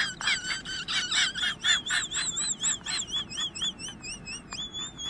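A bird calling: a quick series of short chirps, then a high, warbling whistle that wavers up and down in pitch.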